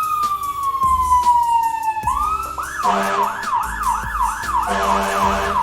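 Fire engine siren. A long wail slides down in pitch, then about two seconds in it switches to a fast yelp of quick rising sweeps, about three a second.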